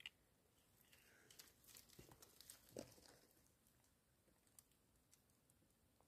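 Near silence, with faint crackling and rustling of dry leaves and twigs in the first half and a few scattered ticks after.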